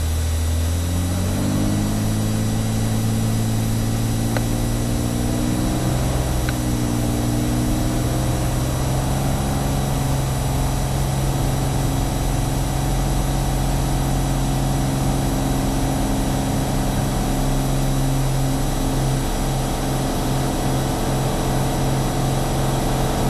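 Cirrus SR22's six-cylinder piston engine and propeller, heard from inside the cockpit, rising in pitch over the first couple of seconds as power comes up, then running steadily at high power.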